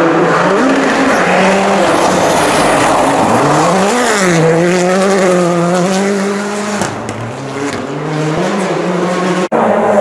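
Rally cars at full throttle on a gravel stage: the engine note rises and falls repeatedly as the drivers shift and lift, over a hiss of tyres on loose gravel. The sound cuts out abruptly near the end.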